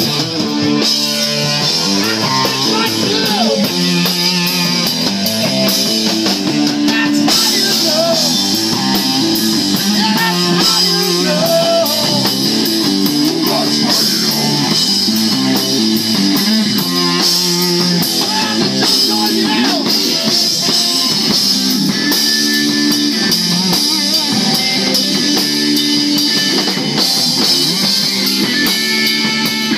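Rock band playing: electric guitar, bass guitar and drum kit in a steady rock groove.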